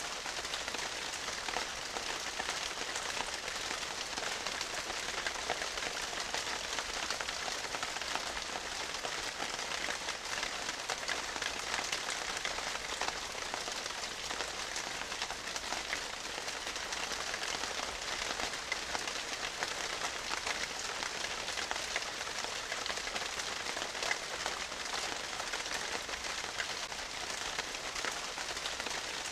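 A steady crackling hiss made of many fine ticks, even in level throughout, like rain on a surface or static.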